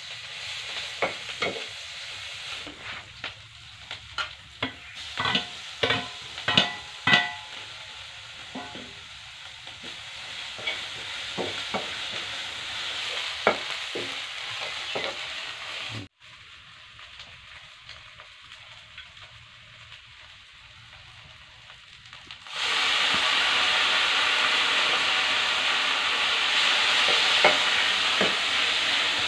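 A metal spatula clinks and scrapes against a black iron wok as food is stirred, ringing with each stroke, while the food sizzles in hot oil. The clinks come thick in the first several seconds. After about twenty seconds the sizzle turns into a loud, steady frying hiss.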